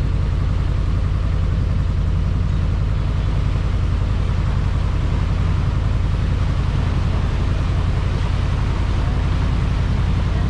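A tour boat's engine running steadily with a fast, even low beat.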